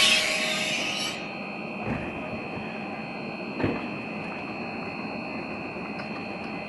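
Pesa Elf electric multiple unit standing at the platform: a loud hiss of air cuts off about a second in, leaving a steady high whine from the train's onboard equipment, with two soft knocks.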